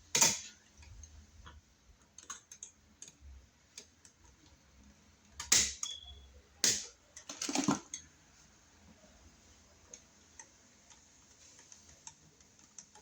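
Clicks, taps and scrapes of a screwdriver, wire and a new wall outlet being handled as the ground wire is fastened under its terminal screw. Loud clicks come just after the start, at about five and a half seconds and around seven to eight seconds, with one short squeak in between. After that there are only faint ticks.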